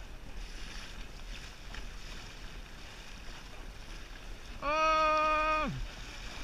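Water and wind noise around a paddled kayak, broken near the end by one long horn blast of about a second, held on one steady pitch and sagging down as it cuts off.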